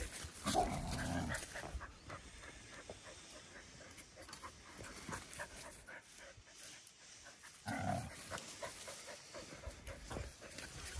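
Two dogs squabbling over a bone: one gives a short, low vocal sound about half a second in and again about eight seconds in, with panting and scuffling in grass and dry leaves between.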